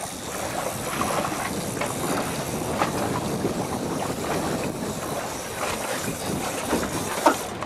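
Steady wash of wind and water noise on a fishing boat at sea, with a few faint knocks.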